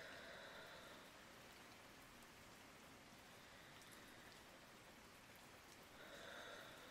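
Soft, slow breathing of a person asleep: two quiet breaths about six seconds apart, one at the start and one near the end, over a faint hiss.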